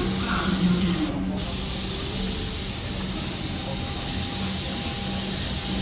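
Heritage train carriage running along the track, heard from an open window: a steady hiss over a low hum and rumble.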